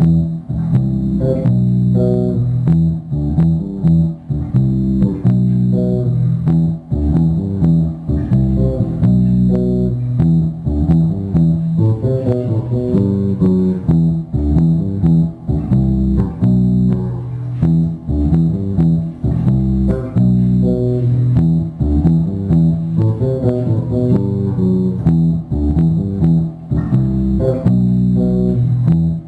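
A ringtone playing: instrumental music with a strong bass line and a run of short, quickly changing melody notes over a steady pulse.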